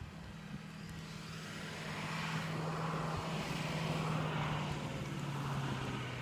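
An engine passing by: a steady hum swells to its loudest about four seconds in and then fades, its pitch dropping slightly toward the end.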